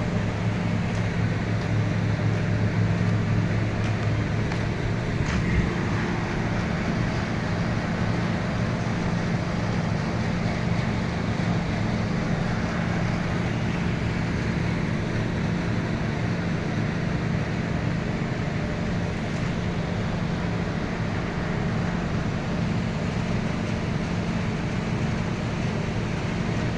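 Steady low hum and drone of a running machine motor in a machine workshop, unchanging throughout, with a faint knock about five seconds in.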